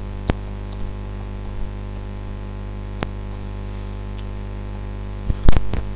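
Computer keyboard keys clicking as a search phrase is typed, over a steady mains hum. A few louder clicks come close together near the end.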